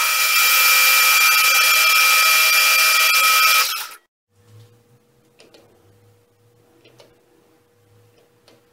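Metal lathe boring the inside of a spinning aluminium workpiece with a boring bar: steady cutting noise with a high whine, which stops suddenly about four seconds in. After that there are only a few faint clicks.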